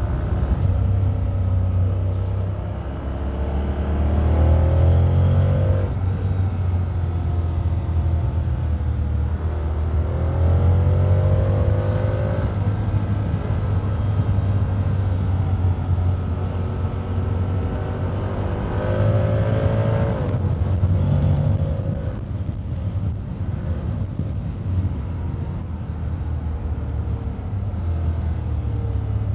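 Honda X-ADV 750 parallel-twin engine and exhaust running under way, heard from the rider's position. The engine note climbs three times as the throttle is opened, about four, ten and nineteen seconds in, and drops back in between.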